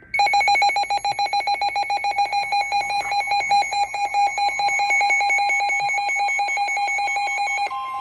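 Weather radio alert alarm: a rapid, buzzy electronic beeping of about ten beeps a second. Near the end it gives way to the steady 1050 Hz NOAA Weather Radio warning alarm tone that announces a severe thunderstorm warning.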